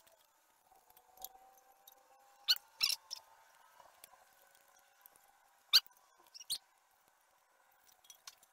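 Old RTV sealant being scraped and peeled off the flange of a metal transmission pan: a few short, squeaky scrapes, the loudest about two and a half, three and six seconds in.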